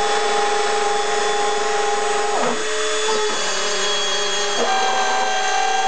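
Dremel 300 rotary tool running at high speed as the spindle of a homemade CNC router, its bit milling a board, a steady high whine. The whine dips briefly in pitch three times as the cut loads the motor.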